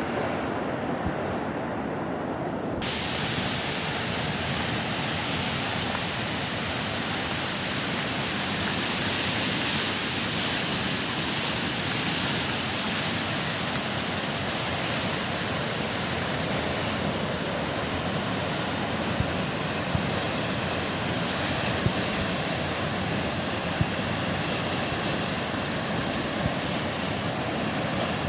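Floodwater of a swollen mountain river rushing in a steady roar of noise; about three seconds in it becomes suddenly fuller and brighter, and a few short sharp clicks come through it later.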